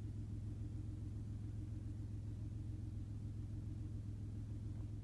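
A steady low hum under a faint hiss, unchanging until it drops away at the very end.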